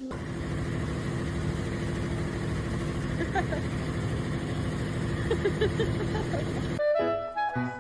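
A vehicle engine idling steadily, with a few short, faint high squeaks in the middle. Near the end it cuts off abruptly and clarinet music begins.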